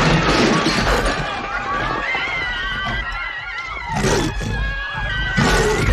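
Film sound effects: a crowd of party guests screaming in panic over crashing and breaking tableware as a monster dog lands on the buffet table. Two louder bursts stand out, about four and five and a half seconds in.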